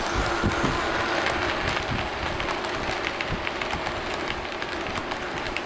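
Model train running past close by: a steady hum under the rolling rumble of the locomotive and passenger cars, with many light irregular clicks of the wheels over the track.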